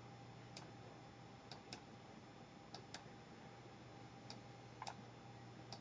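Faint computer mouse clicks, about eight over a few seconds, some in quick pairs, against a low steady hum.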